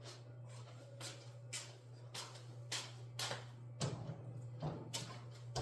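Irregular soft knocks and clicks of kitchen things being handled and put away during cleanup, roughly every half second, over a steady low hum.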